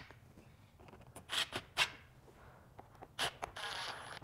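Cordless drill driving screws through a wooden 2x4 French cleat into a panel frame. A few short bursts come about a second in, then a steadier run with a high whine near the end.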